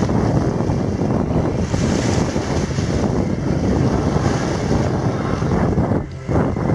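Heavy wind buffeting the camera microphone, a loud low rumbling rush that covers everything else and eases briefly about six seconds in.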